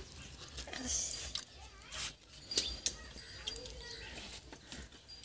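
Faint background of a family meal: scattered small clicks and taps from hands and food on a steel plate, with faint, brief chirping animal calls in between.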